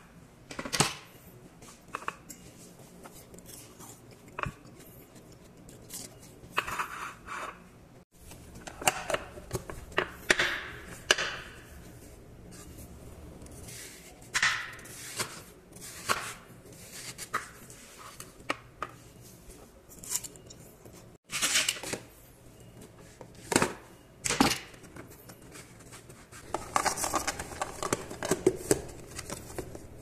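Knife slicing and peeling a canary melon on a wooden cutting board, in short scraping strokes through the firm flesh and rind, with light knocks of the knife and melon pieces against the board and dishes. A denser run of quick scrapes and clicks comes near the end.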